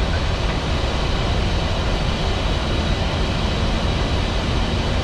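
Steady rushing noise inside a Boeing 737 MAX flight deck on approach: airflow over the nose and the engines' drone, with a faint low hum joining about three seconds in.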